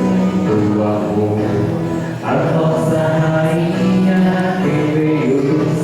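Voices singing a Portuguese hymn to Our Lady of Fátima as music, in phrases of long held notes, with a short break between phrases about two seconds in.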